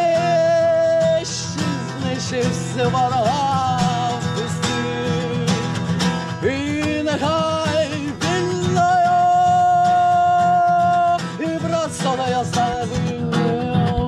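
A singer voicing long, sliding melismatic notes over guitar accompaniment, with one note held steady for about two seconds a little past the middle.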